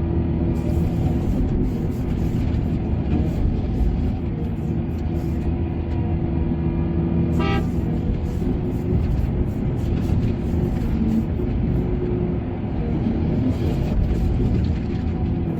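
Heavy diesel machinery running steadily with a deep drone. A brief horn-like toot sounds about halfway through.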